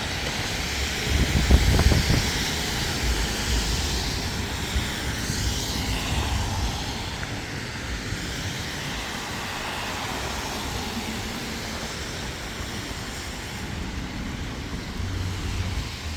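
Steady rushing noise of traffic on a snowy street, with low buffeting rumbles about a second in.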